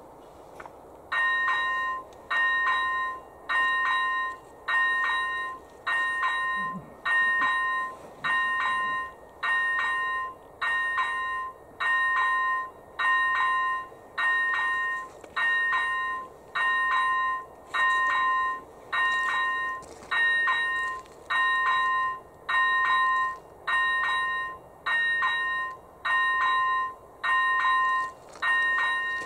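AŽD E-bell ZV-01 electronic level-crossing bell starts about a second in and rings in a steady rhythm, about one stroke a second. Each stroke is a clear pitched ding. It is the crossing warning that a train is approaching.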